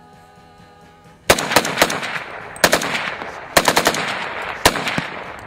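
300 Blackout AR rifle with a muzzle brake fired rapidly: quick strings of sharp shots, three to five at a time, a single last shot near the end, with echo trailing after each string.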